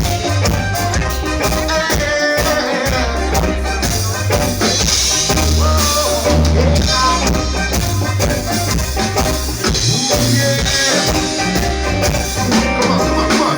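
Live reggae band playing an instrumental passage, with bass, drum kit, shaker percussion and sustained instrument lines.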